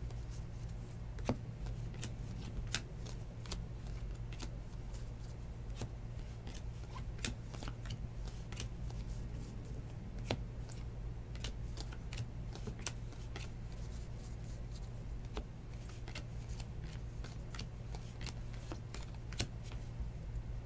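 2019 Bowman baseball cards being flipped through one by one by hand: irregular soft clicks and snaps of card edges sliding off the stack, over a steady low hum.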